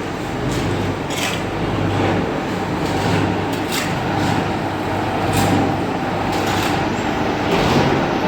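Continuous carbonization furnace machinery running, a steady mechanical rumble with a low hum. Short metallic scrapes or clanks come through every second or two.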